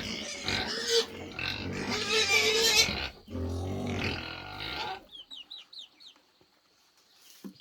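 Pigs squealing and grunting, loud and harsh, cutting off abruptly about five seconds in; then a few faint, quick high chirps from a small bird.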